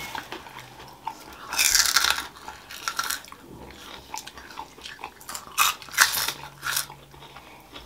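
Close-up eating sounds: several crisp crunches of fried finger crisps (dhumro) being bitten and chewed, the loudest about two seconds in.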